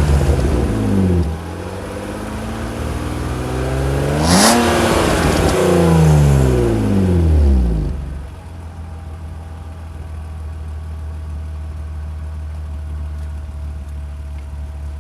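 BMW E36 325i coupé's 2.5-litre straight-six on its stock exhaust, revved. The revs are falling back to idle at first; about four seconds in there is a quick blip, and the revs wind down over a few seconds and settle into a steady idle.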